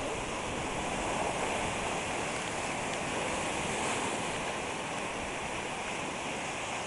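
Steady wash of small waves breaking and running up a sandy beach.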